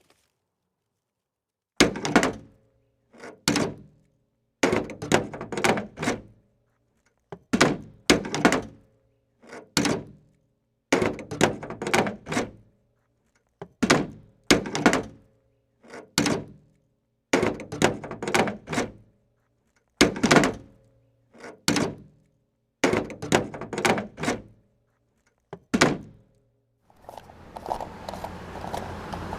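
Plastic toy RC excavator tumbling and knocking against hard surfaces: about a dozen short bursts of thunks and clatter, each ending in sudden silence. Near the end a small motor's steady buzz starts.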